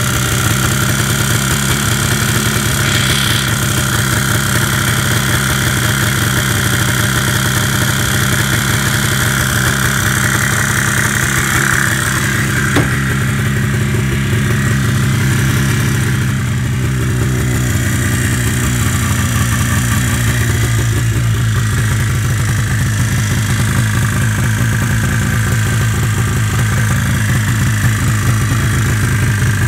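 1975 Arctic Cat Jag 340 snowmobile's two-cylinder, 339cc Suzuki-built Spirit engine idling steadily.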